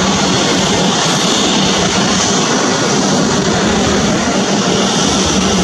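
Boeing 737-800's CFM56-7B turbofan engines running steadily as the jet taxis, a high whine over a low hum.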